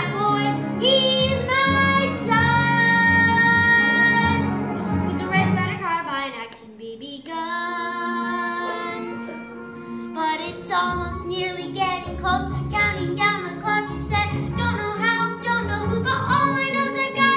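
A boy singing a musical-theatre number over instrumental accompaniment. He holds long notes with vibrato, slides down in pitch about six seconds in, then sings quicker phrases.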